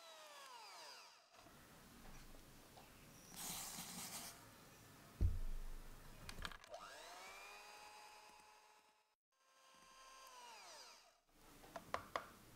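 Electric hand mixer whipping egg whites and sugar toward stiff peaks in a glass bowl, in several short runs. In each run the motor's whine rises, holds and falls away. There is a loud low thump about five seconds in and a few sharp clicks near the end.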